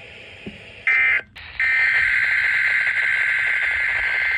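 NOAA Weather Radio EAS/SAME digital data burst: a loud, high-pitched buzzing of rapidly alternating data tones. A short burst comes about a second in, then after a brief gap a longer burst of about three seconds that stops abruptly. It marks the end of one alert message and the coding of the next.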